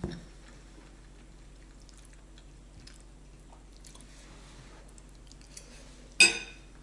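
Quiet eating: faint chewing and small clicks of a metal fork in a ceramic bowl of rotini pasta. Near the end, one loud, sharp ringing clink as the fork strikes the bowl.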